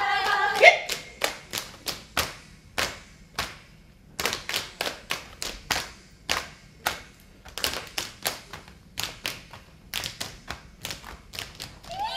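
Saman dancers clapping and slapping their bodies in unison: sharp, separate claps and slaps at about two a second, coming closer together after about eight seconds. A sung line dies away in the first second.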